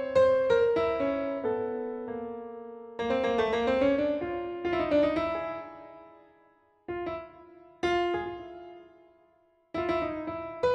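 Solo piano improvisation: runs of notes and chords that ring and die away between brief pauses, with two single chords about seven and eight seconds in and a new flurry of notes near the end.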